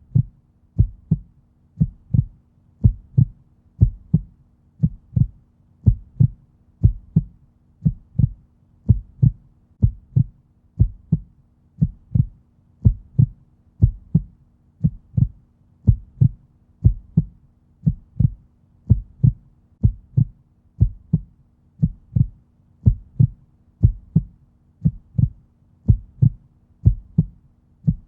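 Heartbeat sound: a steady lub-dub double thump, low-pitched, repeating about once a second like a resting heart rate.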